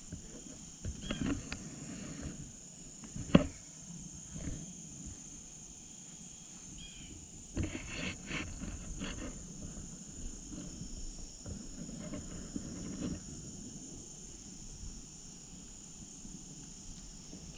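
Steady high-pitched trilling of an insect chorus, with scattered short rustling noises and a sharp click about three seconds in, the loudest sound.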